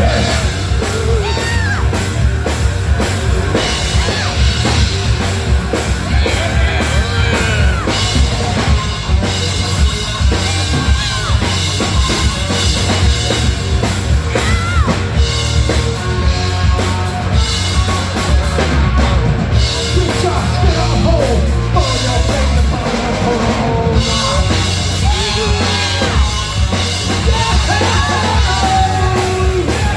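Rock band playing live and loud: pounding drum kit and heavy bass with distorted guitar, and a voice singing and yelling over it.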